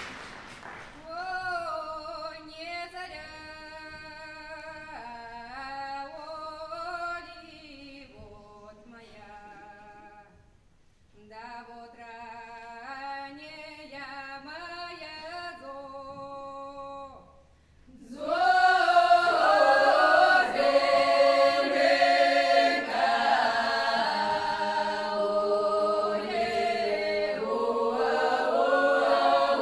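Folk choir singing a traditional Kuban Cossack song a cappella. The opening lines are sung softly by a few voices, and about 18 seconds in the full choir comes in, much louder and fuller.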